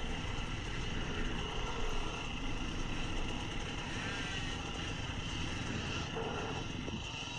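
Dirt bike engine running steadily at low throttle, heard close up from the rider's own bike.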